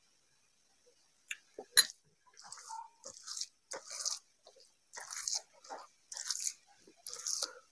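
Hand squeezing and mixing wet panta bhat (water rice) on a plate: a run of short wet squelches, about one a second, after a single sharp click about two seconds in.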